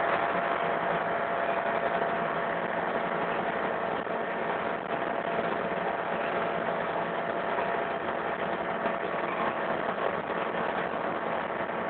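Excavator's diesel engine running steadily at a constant level, with a steady tone through it, while the machine pours concrete.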